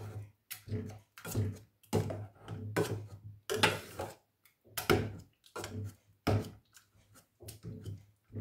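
Wooden spoon mashing and stirring soft cooked pumpkin in a stainless steel saucepan: repeated scraping, squelching strokes against the pot, irregular, about two a second.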